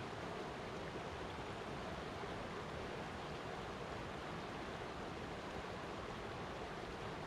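Flowing water rushing steadily, an even, unbroken sound with no separate splashes or drips.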